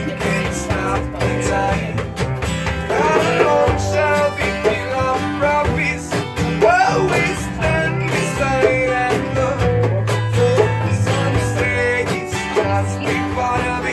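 Live music: a guitar playing with a voice singing over steady bass notes.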